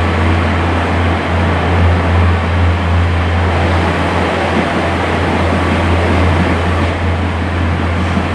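Interior noise of a British Rail Class 142 Pacer diesel railbus under way: a steady low drone from its underfloor diesel engine with a continuous rumble of the wheels on the track.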